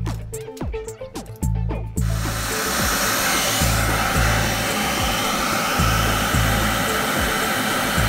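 Background music with a steady bass beat. About two seconds in, a loud, steady rush of air starts as the venturi air pump's blower runs, and it holds unchanged after that.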